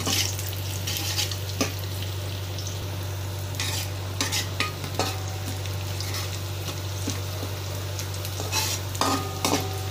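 Sliced shallots sizzling as they are stir-fried in a metal wok. A metal spatula scrapes and clicks against the pan every so often, with a cluster of strokes about halfway through and another near the end, over a steady low hum.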